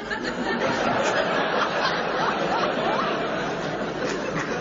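Live audience laughing together, a sustained swell of crowd laughter.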